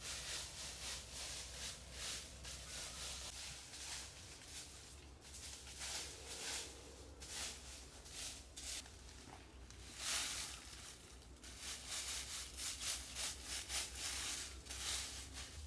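Repeated rough scraping or rubbing strokes at an uneven pace, the loudest about ten seconds in.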